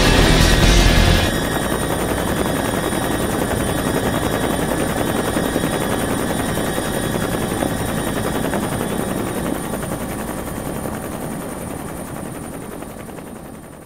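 Dense, rapid rattling noise on the soundtrack, fading out slowly over the last few seconds. A louder stretch with heavy bass cuts off about a second in.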